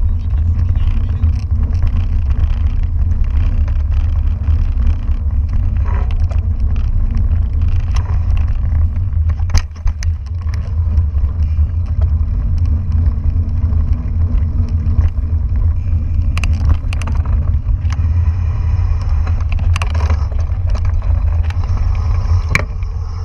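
Wind buffeting a bike-mounted or helmet camera's microphone over the rumble of a mountain bike rolling along a dirt forest trail, with scattered sharp clicks and rattles from the bike over bumps.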